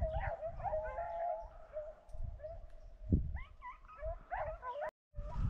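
A pack of rabbit-hunting dogs giving tongue on a running rabbit, many overlapping wavering, yelping cries. The sound drops out briefly near the end.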